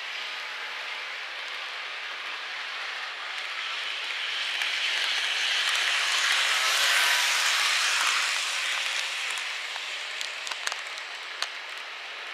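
Microace N gauge model of a Kintetsu 20100 series train running along the track: a steady whirring hiss that swells to its loudest about halfway through as the train passes close, then fades, with a few small clicks near the end.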